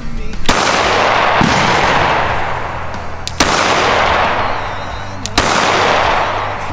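Pistol shots: three single shots, the second about three seconds after the first and the third two seconds later, each followed by a long fading echo.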